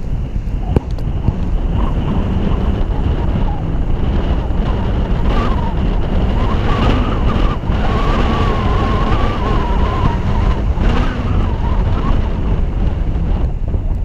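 Wind buffeting the microphone of a camera mounted on a moving car's roof, a steady heavy rumble over the hum of the car in motion.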